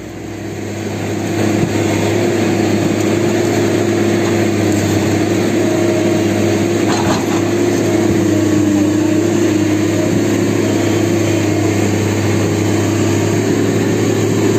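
Tata Hitachi hydraulic excavator's diesel engine running steadily under load as the arm works, swelling over the first second or so and then holding a steady drone, with a single light knock about seven seconds in.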